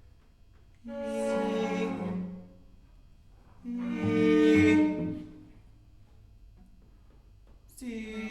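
Experimental contemporary music: a bowed string instrument playing long, held notes separated by pauses, with one note about a second in, another about four seconds in, and a third starting near the end.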